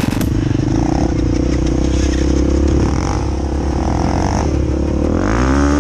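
Dirt bike engine running at low speed, with the engine note rising in a rev about five seconds in.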